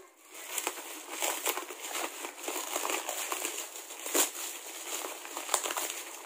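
Plastic bubble wrap crinkling and crackling as it is handled and pulled open by hand, with many small sharp cracks; the loudest crack comes about four seconds in.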